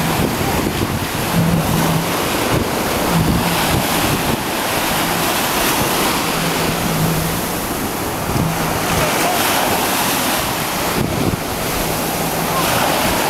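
Wind buffeting the microphone over surf and splashing water, with the low, steady hum of a jet ski's engine coming and going underneath.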